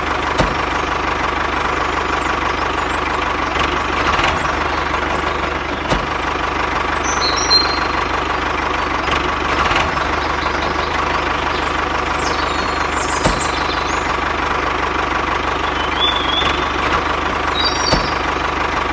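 Tractor engine idling steadily, with a few faint high chirps and occasional light clicks.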